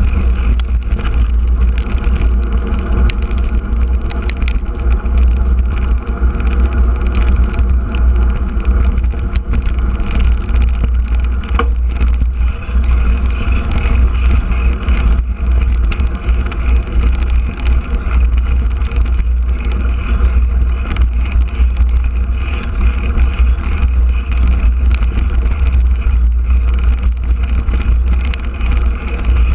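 A mountain bike rolling over a packed-dirt trail, heard through a handlebar-mounted camera: a steady, heavy low rumble with tyre and frame noise and scattered small clicks and rattles.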